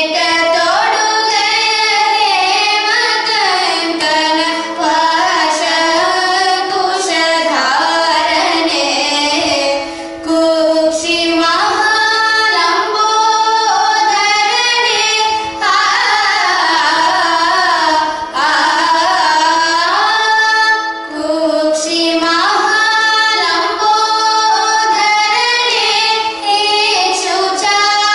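A girl and a young woman singing a Carnatic kriti together in raga Hamirkalyani, with gliding, ornamented melody lines. A steady drone holds underneath.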